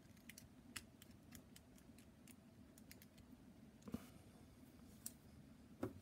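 Faint, irregular small clicks from the number wheels of a cheap four-dial combination padlock being turned notch by notch while a bent bobby pin is pressed down beside the shackle, feeling for a wheel's gate.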